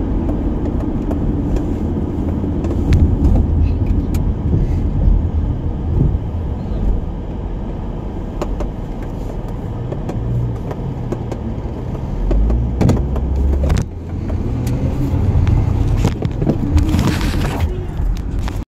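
Road noise inside a moving car: a steady low rumble of tyres and engine, with scattered light knocks and clicks and a brief hiss near the end. It cuts off abruptly just before the end.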